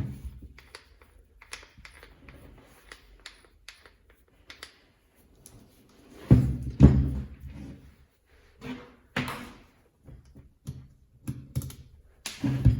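Irregular clicks, taps and knocks of angle grinder parts and hand tools being handled on a workbench, with a louder run of heavy thuds about six seconds in.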